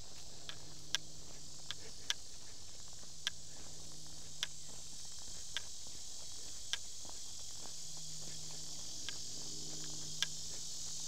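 Steady high-pitched chorus of insects in summer woodland, with short sharp ticks about once a second and a faint low hum that fades out midway and returns near the end.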